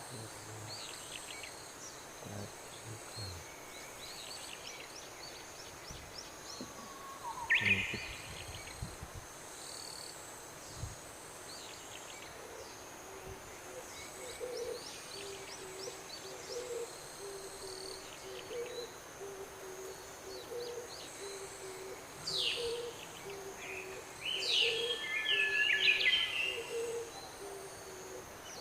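Bird and insect chorus: a bird repeats a low hooting note about once a second from about halfway in, over steady high insect buzzing and scattered chirps of other birds, with a louder burst of calls near the end.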